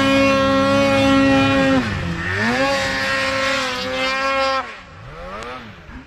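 Snowmobile engine held at high revs, dipping about two seconds in and revving back up. Near the end it drops to a much fainter, distant engine note that rises and falls.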